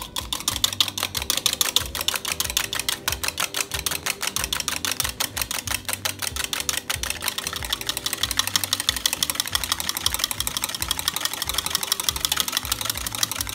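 Small wire whisk beating an egg white by hand in a plastic bowl, whipping it to a froth: fast, steady clicking and rattling of the wires against the bowl.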